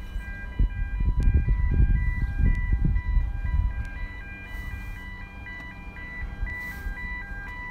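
A simple tune of clear, chime-like single notes, stepping up and down in a steady rhythm. Under it is a low rumbling noise that is heaviest in the first three seconds.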